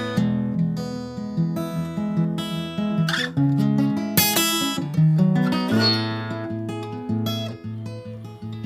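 Acoustic guitar strummed and picked through an instrumental break between sung verses, changing chords.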